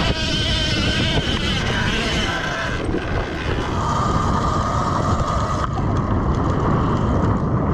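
Sur-Ron electric dirt bike riding off-road: a motor whine that shifts in pitch with the throttle, over heavy wind rumble on the microphone.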